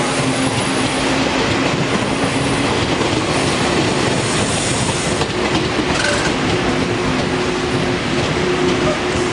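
Passenger train pulling in alongside the platform: a loud, steady rumble of wheels on rails, with a faint steady whine.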